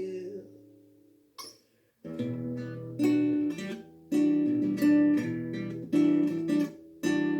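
Acoustic guitar played with chords struck about once a second, starting about two seconds in after a short pause. At the very start a held sung note fades out.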